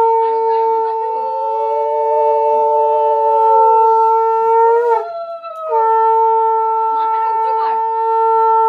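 Conch shell (shankha) blown in two long, steady blasts. The first lasts about five seconds and ends with a slight wobble in pitch. The second starts just under six seconds in and is still sounding at the end.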